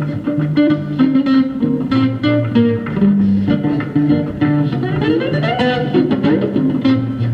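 Guitar played solo with picked notes over a moving bass line. About five seconds in, a run of notes slides upward in pitch.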